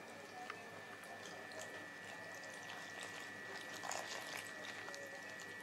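Faint trickle of water poured in a thin stream onto flour while a hand works it into dough, with a steady high whine behind it.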